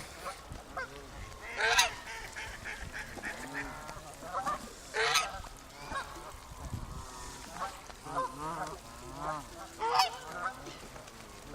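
A flock of Canada geese honking, with many overlapping calls and three loud honks standing out about two, five and ten seconds in.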